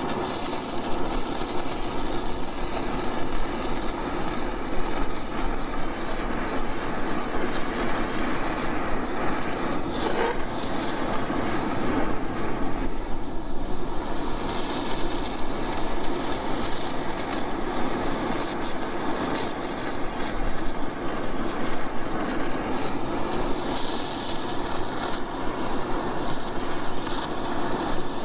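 Oxy-acetylene torch flame burning with a steady hiss.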